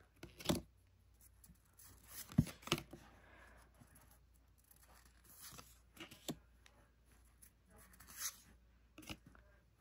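Pokémon trading cards being flipped through by hand: faint sliding rustles and a few soft ticks of card against card, scattered at irregular moments.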